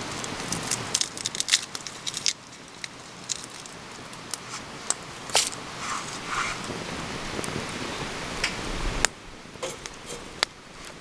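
Dry wood crackling and snapping in irregular sharp pops, with a denser patch of snaps in the first couple of seconds.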